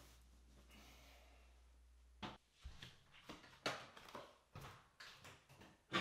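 Faint rustle of clothing as a T-shirt is pulled off, then a run of soft, irregular knocks and taps from bare footsteps on the bathroom floor and the folding bathroom door, the loudest knock near the end.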